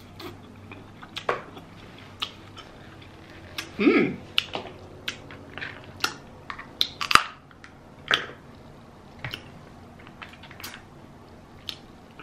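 Close-miked eating sounds from a seafood boil: chewing, wet mouth clicks and smacks, and sharp snaps from handling king crab legs and shrimp shells. The clicks come irregularly, with a louder burst about four seconds in and the sharpest snap a little after seven seconds.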